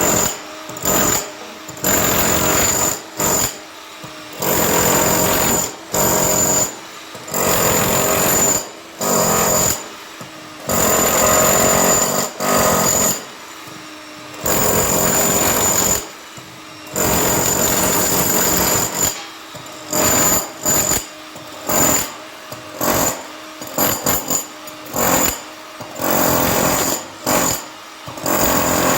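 Hilti TE 70 combihammer breaking concrete in repeated bursts of half a second to about three seconds, stopping and starting many times.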